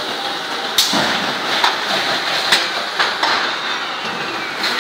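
Palletizing robot cell at work: a steady mechanical hiss and hum with about five sharp knocks and clacks at irregular intervals, from the robot's pneumatic box gripper and the cardboard boxes it handles.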